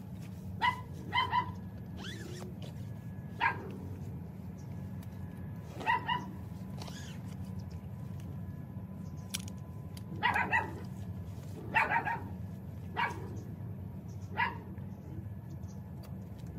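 A dog barking off and on, short barks singly and in quick pairs every few seconds, over a steady low hum.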